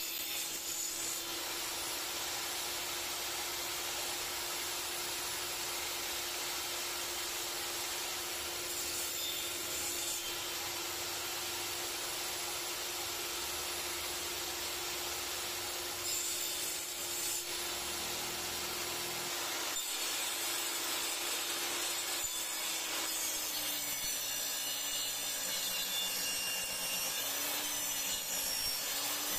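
A power woodworking tool runs continuously while cutting wood, making a steady sawing, rasping noise over its motor hum. The hum dips a little in pitch and wavers in the last few seconds.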